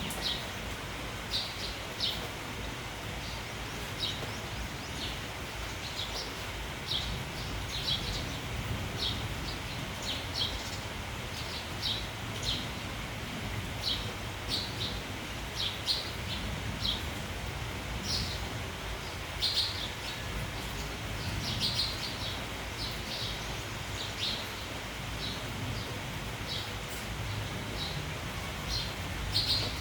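Sparrows chirping in short, high, scattered calls, several a second at times, over a steady hiss of falling rain.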